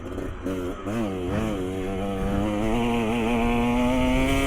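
Dirt bike engine on the trail, its pitch rising and falling over a few quick throttle changes in the first second or two. It is then held on the throttle in one pull, the note climbing slowly.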